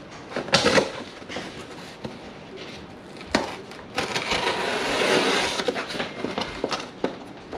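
Pocket knife cutting through the packing tape on a cardboard box, with knocks and clicks of the blade and hands against the cardboard, then a steady rasping slit lasting about two seconds as the blade runs along the taped seam.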